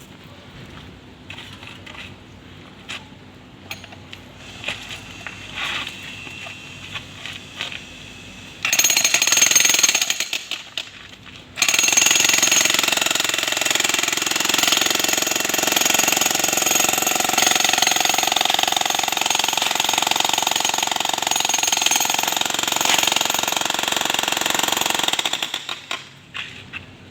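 Makita electric demolition hammer chiselling into a concrete column. After several seconds of scattered light knocks it runs in a short burst of about two seconds, then, after a brief pause, in one long continuous run of about fourteen seconds before stopping.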